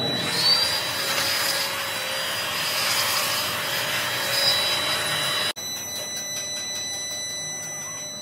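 Electric angle grinder spinning up to a steady high whine and grinding on a cast-iron brake drum casting. It stops abruptly about five and a half seconds in, giving way to a quieter steady hum.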